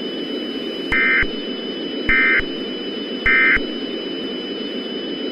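Emergency Alert System end-of-message signal: three short bursts of warbling digital data tones, about a second apart, over a steady hiss of radio static.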